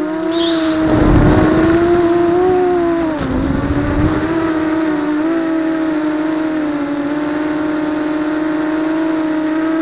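Brushless motors and propellers of a ZMR250 racing quadcopter whining, recorded from a keychain camera mounted on the frame; the pitch rises and dips with the throttle. Wind buffets the microphone between about one and four seconds in.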